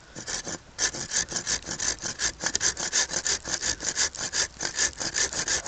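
Hand saw cutting through a thicker piece of wood with quick back-and-forth strokes, about four a second, each a rasping scrape of the teeth. It starts with a few strokes, then runs on steadily from about a second in.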